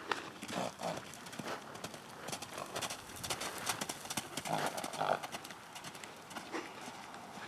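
Hoofbeats of a young KWPN (Dutch Warmblood) gelding cantering and bucking loose on an arena's sand footing: quick, irregular hoof strikes, with a few louder bursts a little past halfway.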